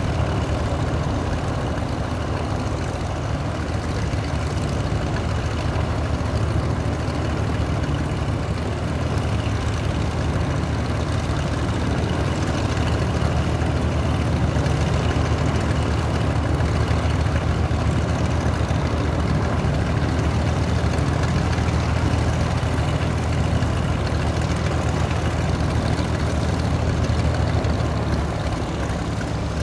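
Reims Cessna F337G Skymaster's push-pull twin piston engines and propellers running steadily at low power while taxiing, a low drone that swells slightly and eases off a little near the end.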